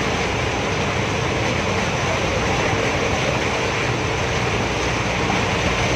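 A vehicle wading through a flooded street, heard from inside it: a steady engine hum under the continuous rush and splash of floodwater being pushed aside.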